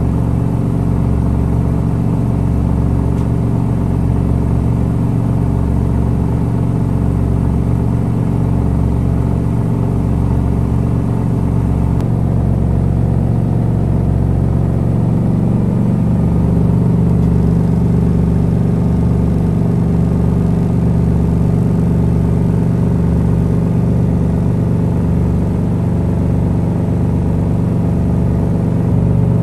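Electrolux EWT1567VIW top-loading washing machine running, a steady motor hum over a low throb about once a second. The hum shifts about halfway through and grows a little louder.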